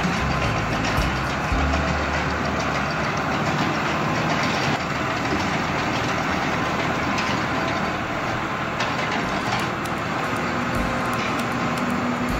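Tractor engine running steadily, powering a front-mounted Hustler SL360X bale unroller that is unrolling a round hay bale.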